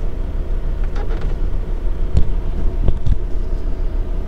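A car driving slowly with a steady low rumble, and a few dull knocks a little past two and three seconds in.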